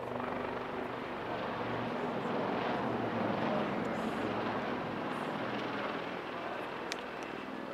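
Two Royal Navy Wildcat HMA.2 helicopters passing in display flight: a steady rush of rotor and turbine noise. It builds to its loudest about three and a half seconds in, then slowly fades.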